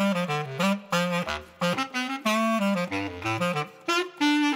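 A single-reed woodwind playing a quick melody of many short notes, in several phrases with brief breaks between them.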